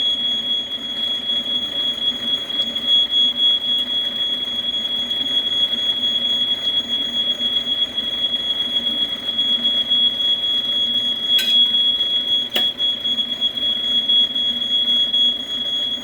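Smoke alarm sounding a continuous high-pitched tone, set off by smoke from butter-fried mushrooms in the pan. Two sharp clicks come about eleven seconds in and again a second later.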